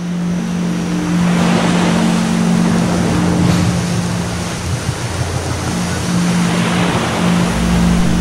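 Waves and wind rushing steadily, with a strong, steady low hum underneath that fades briefly past the middle and comes back.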